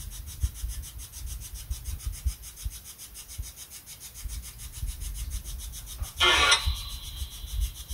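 Low, uneven rumbling and rubbing noise on the microphone, with a short louder rasp about six seconds in.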